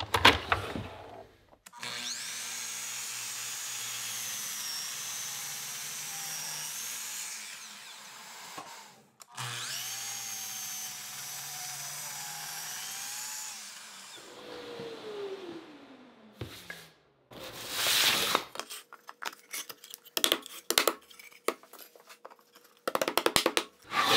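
Festool Kapex KS 120 sliding compound miter saw making a 5-degree bevel cut through a solid cherry board: the motor starts and runs with a steady high whine, stops briefly, runs again, then winds down with a falling pitch. After that come a series of sharp knocks and clatter.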